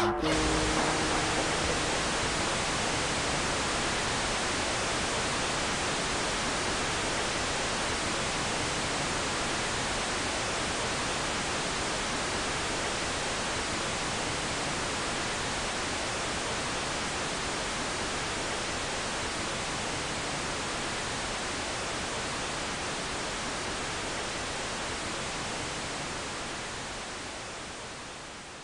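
A steady, even hiss of noise that starts abruptly and slowly fades out near the end.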